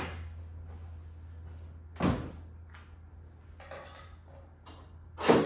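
Four separate thuds and knocks a second or two apart, the loudest just before the end, over a low steady hum.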